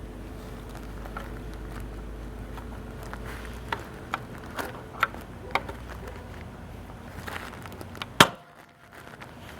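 2009 Audi A4 engine idling, with a steady low hum and several irregular sharp clicks. Near the end there is one loud click, after which the hum drops away. The owner blames the rough idle on a vacuum leak, with lean fuel-trim and P2015 codes and a heavy misfire at idle.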